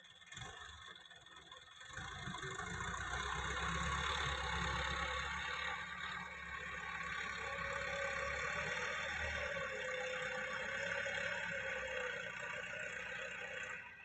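Tractor diesel engine running steadily with a low rumble. It comes in about two seconds in and drops away suddenly near the end.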